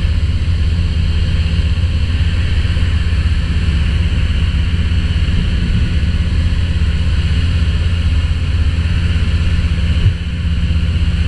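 Light aircraft engine and propeller droning steadily in cruise, heard inside the cockpit with a hiss of airflow. A single brief knock about ten seconds in.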